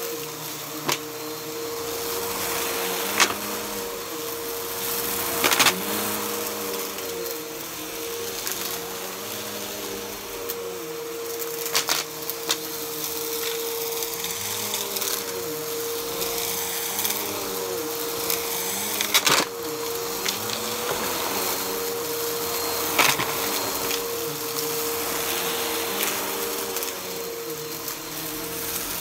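Bissell upright bagless vacuum running over shag carpet, a steady motor whine whose lower tones rise and fall as it is pushed back and forth. Sharp crunches and clicks come every few seconds as the brushroll picks up debris.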